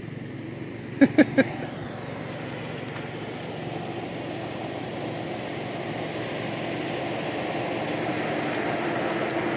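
Toyota 4Runner engine working under load as the SUV climbs a steep dirt hill, growing steadily louder as it comes closer. Three short, loud calls cut in about a second in.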